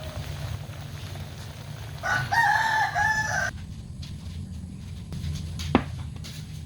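A rooster crowing once, about two seconds in, for about a second and a half, over a steady low hum. A single sharp click comes near the end.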